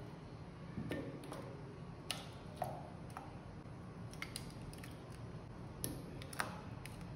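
Sliced strawberries dropped one by one into liquid strawberry gelatin in a glass dish: about half a dozen soft, small wet plops and splashes, irregularly spaced.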